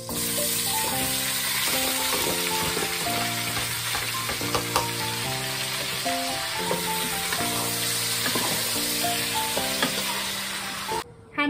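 Pieces of raw meat sizzling in hot oil in a large cooking pot, the hiss jumping in as they are tipped in and going on steadily while they are stirred with a metal spoon. It stops abruptly about a second before the end.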